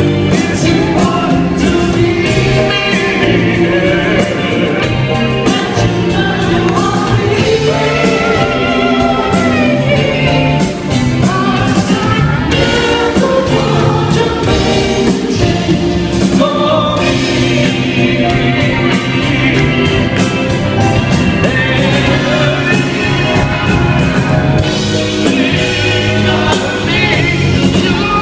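Live band playing a soft-rock song, with a male lead voice and several voices singing together, heard through a phone-style recording from the audience.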